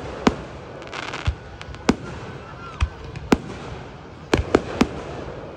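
Aerial firework shells bursting overhead: about eight sharp bangs at uneven intervals, with a quick run of three near the end.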